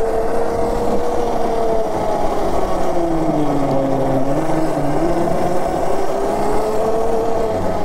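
Electric drive whine from a Monster Moto 1000 electric mini bike being ridden. The pitch dips lower about halfway through as it slows, then climbs back up, over a steady rush of road noise.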